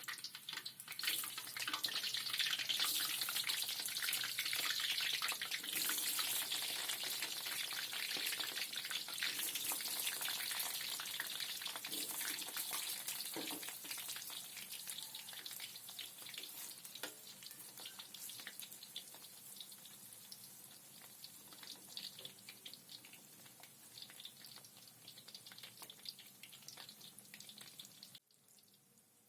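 Food frying in hot oil: a dense sizzling crackle that is loud at first, slowly dies down, and stops abruptly near the end.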